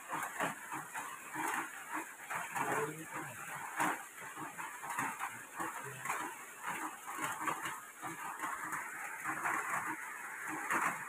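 Irregular rustling and crackling of dry plant strips being handled and plaited by hand into a basket.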